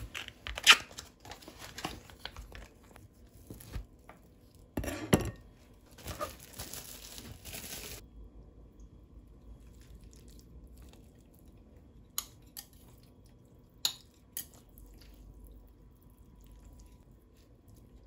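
Plastic food packaging being crinkled and torn open by hand, with sharp loud crackles about a second in and again near five seconds. After a sudden drop to quiet, a few light taps of chopsticks against a ceramic plate as noodles are laid on it.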